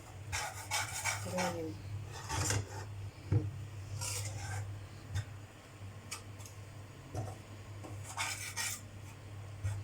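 A metal ladle scraping and rubbing against a pan in irregular strokes, stirring gram flour as it roasts, over a low steady hum.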